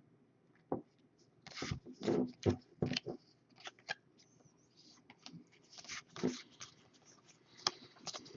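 Trading cards and foil pack wrappers being handled: a series of short rustles, crinkles and light clicks, in two clusters.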